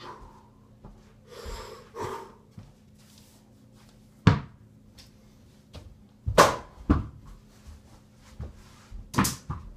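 Several sharp thumps and knocks, the loudest about four seconds in, then a pair around six and seven seconds and another near the end: a small ball striking the over-the-door mini basketball hoop's backboard and rattling the door.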